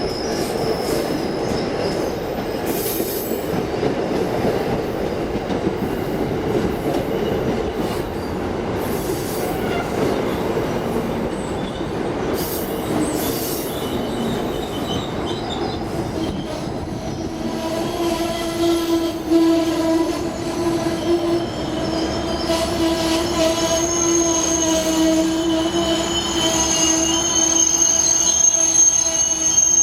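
Amtrak passenger coaches rolling into the station: a rumble of wheels on rail with occasional clanks for the first half. From about eighteen seconds in, steady high squealing joins as the train slows and brakes.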